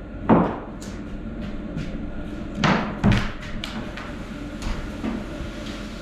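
A few knocks and thuds of wood being handled, one early and a louder pair about halfway through, over a steady low hum.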